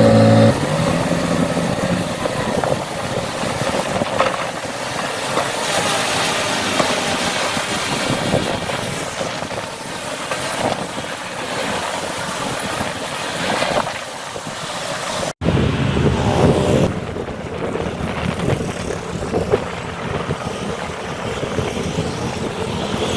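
Diesel engines of heavy earthmoving machinery, a dump truck and bulldozer, running steadily under load. The sound drops out for an instant about fifteen seconds in, then carries on.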